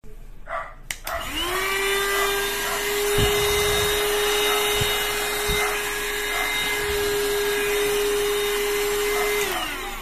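Youmiai cordless handheld mini vacuum cleaner switched on with a click about a second in. Its motor whine rises quickly to a steady pitch over a rush of air, with a few soft knocks midway, then winds down near the end as it is switched off.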